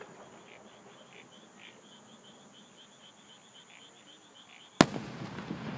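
Insects and frogs chirping faintly in short repeated calls, then near the end a single sharp, loud bang of an aerial firework shell bursting, followed by a rolling echo.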